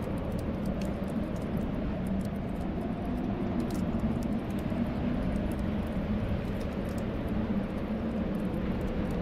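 Steady low wind of a snowstorm, with faint, irregular crackling clicks of a wood fire on top.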